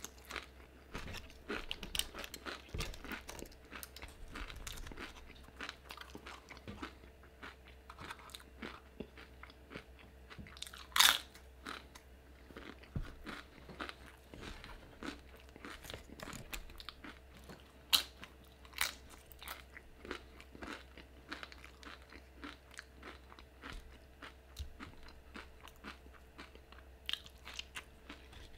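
Close-miked chewing of crunchy tortilla chips, a run of small crunches and mouth noises with a few sharper crunches, the loudest about eleven seconds in.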